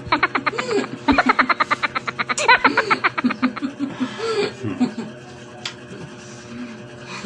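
People laughing: a fast, pulsing run of laughter for the first three seconds or so, then softer chuckling, over a steady low hum.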